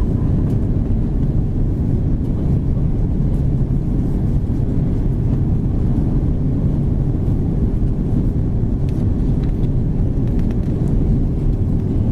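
Airbus A330-200 cabin noise in flight on approach: a steady, loud low roar of engines and airflow with a constant hum running through it.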